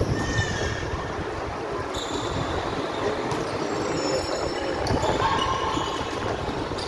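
Volleyball rally in a gymnasium: three sharp ball hits a couple of seconds apart, with echo, over the steady hubbub of players and spectators in the hall.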